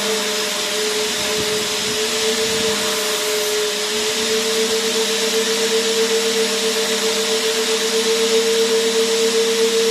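Vacuum cleaner motor running steadily: a constant whine over a broad hiss of rushing air. The whine dips slightly in pitch for the first few seconds, then settles.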